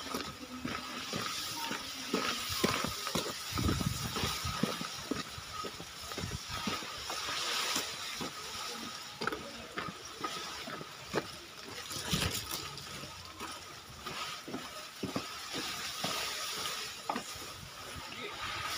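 Rustling and crackling of a bundle of freshly cut elephant grass (Napier grass) being carried, its long leaves brushing together and against the camera with uneven scrapes and small knocks.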